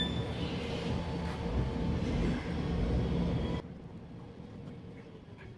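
Steady low mechanical rumble with a faint hum, which cuts off suddenly about three and a half seconds in, leaving a quieter background.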